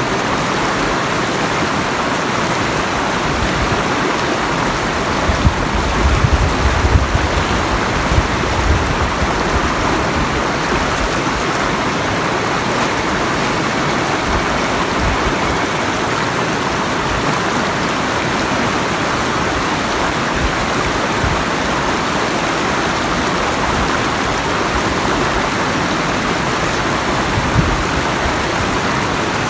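River water rushing and splashing steadily. A few low bumps come between about five and nine seconds in.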